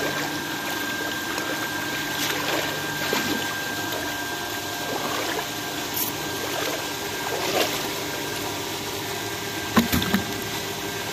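Water pump draining the pond, running steadily with a constant whine over the sound of moving water. A few short sharp knocks come near the end.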